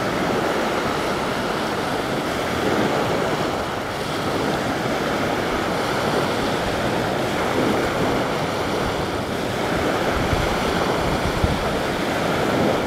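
Small lake waves washing steadily onto a sandy beach, with some wind on the microphone.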